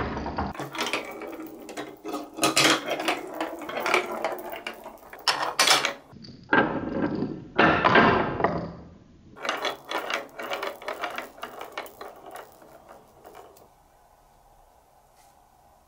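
Plastic ball rolling and rattling down the chutes and tubes of a plastic building-block marble run, with irregular clattering knocks against the track. The run goes quiet near the end as the ball comes to rest.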